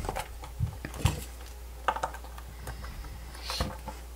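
A few irregular plastic clicks and knocks as the two halves of a Fluke 87 V multimeter's plastic case are handled and pried apart.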